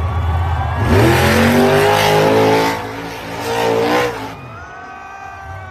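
Car engine running steadily, then revving hard with rising and falling pitch for about three seconds before easing off near the end.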